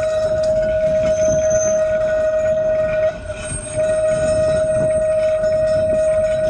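Blackpool Boat tram No. 600 rolling around a tight curve of track, its steel wheels giving a loud, steady, single-pitched squeal over a low rumble from the rails. The squeal falters briefly about three seconds in, then carries on.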